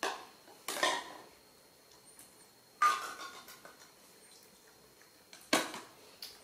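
Plastic milk bottles knocking and clattering against a tiled floor as they are handled, about five sharp knocks spread irregularly through the few seconds.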